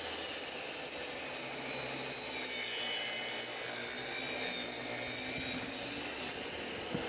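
A sheet of plywood shifted and slid across a table saw's metal top, giving a low scraping and rustling noise over a steady background noise, with a single knock near the end. The saw blade is not running.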